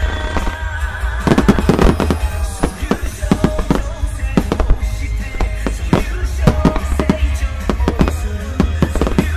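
Fireworks bursting in a rapid barrage: a dense run of sharp bangs and cracks, many to the second, with music playing throughout.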